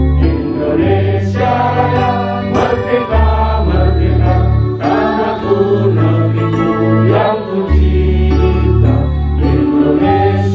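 Music with choir-like singing over long held bass notes.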